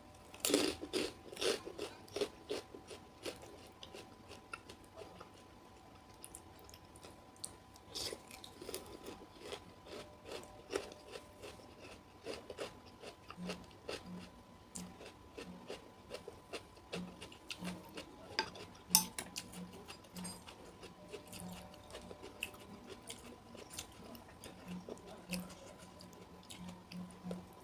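A person chewing and biting into crunchy raw vegetables and fruit of asinan Betawi, with irregular crisp crunches throughout.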